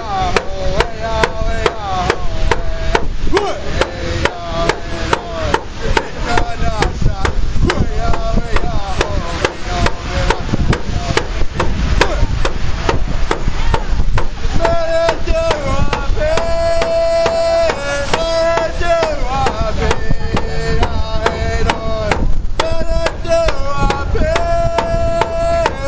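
A hide hand drum beaten with a stick in a steady, even beat while a man sings a song over it. The singing grows much stronger about halfway through, with long held notes.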